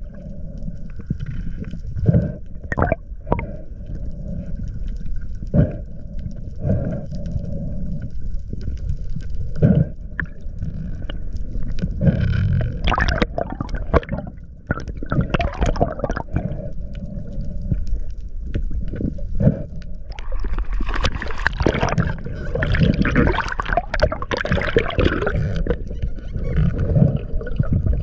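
Underwater sound around a freediver: a steady low rumble of moving water with scattered knocks and clicks. From about twenty seconds in it grows louder and hissier, with crackling and gurgling noise.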